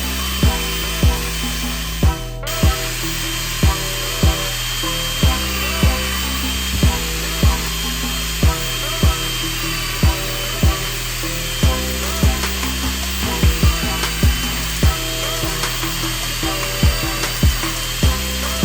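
Background music with a steady beat, about one beat every 0.6 s, over a steady high-pitched whine of a power drill running.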